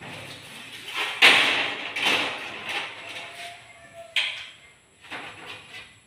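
Aluminium sliding window sash being slid along its track: several rolling scrapes, the loudest about a second in.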